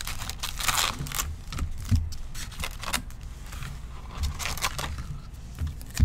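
Foil trading-card pack wrappers crinkling and rustling as the packs are taken out of a cardboard box and stacked on a table, with a few soft knocks.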